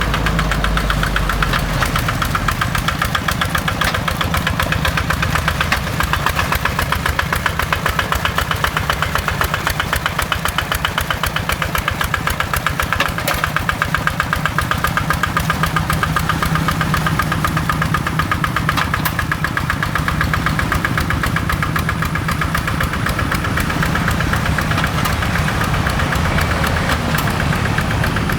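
Kubota RD85 DI-2S single-cylinder diesel on a hand tractor, running at a steady speed with the quick, even knock of its firing strokes.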